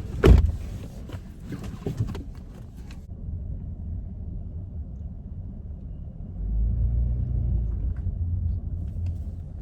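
Inside a just-parked car: a loud thump just after the start and a lighter knock about two seconds in, then a low, muffled rumble that swells for a couple of seconds.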